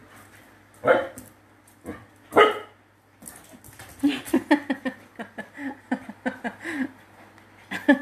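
Pet dog barking twice, about a second apart, then a quick run of short pitched yips.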